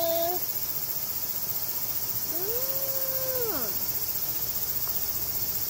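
A woman's drawn-out 'nnn~' hum of delight, a little over two seconds in, rising in pitch, held, then falling away. Underneath is a steady high chirring of insects.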